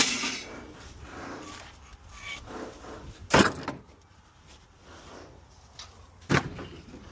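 Three sharp knocks and clatters of junk, long wooden poles among it, being thrown onto a trailer. One comes at the start, the loudest about three seconds in, and another near the end.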